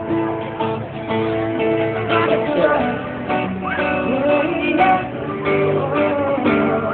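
Live band music at a pop group's sound check: a strummed acoustic guitar over held chords, with a few gliding vocal or lead notes. The sound is dull, with the high end cut off.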